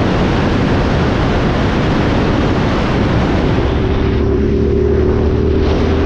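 Heavy wind rush over the microphone from a moving motorcycle. About halfway through, the Suzuki SV650's V-twin engine comes through with a steady note as the wind eases for a second or two, then the wind picks up again.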